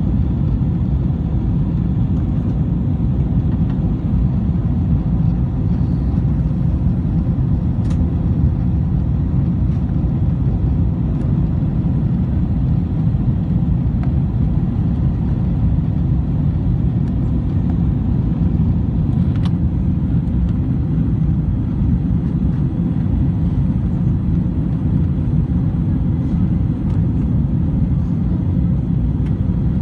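Steady low rumble of an airliner's engines and airflow, heard inside the passenger cabin during the approach, holding even in level and pitch.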